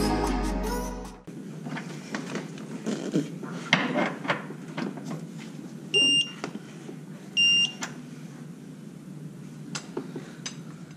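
Electronic torque wrench beeping twice, about a second and a half apart, each beep signalling that the set torque has been reached on a bolt. Ratchet clicks and tool knocks run between the beeps, and background music fades out in the first second.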